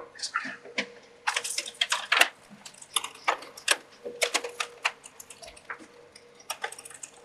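Irregular clicks and clatter of the Macintosh SE/30's logic board being worked loose and slid out of its metal chassis, the board and metal frame knocking and scraping against each other.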